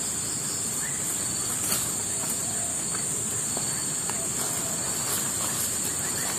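Steady high-pitched drone of insects in the surrounding vegetation, unbroken, over a constant low hiss.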